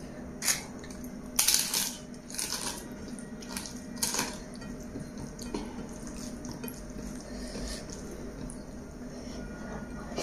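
A hand mixing chicken biryani with curry gravy on a plate, making wet squishing sounds as the fingers scrape the plate. The sounds come in several short bursts in the first few seconds, the loudest about a second and a half in, and then go on more softly.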